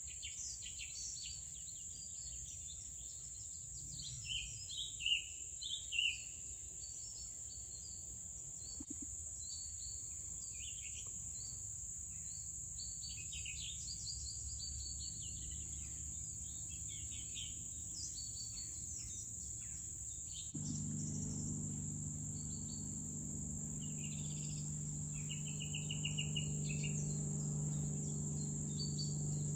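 Outdoor insect chorus, a steady high trill, with birds chirping on and off over it; a few louder chirps come about five seconds in. About two-thirds of the way through, a low steady hum starts suddenly under the insects and birds.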